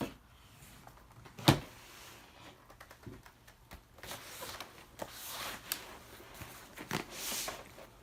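A fabric laptop backpack being handled as its back compartment is opened and loaded, with one sharp knock about a second and a half in, scattered small clicks, and two longer rasping sweeps later on.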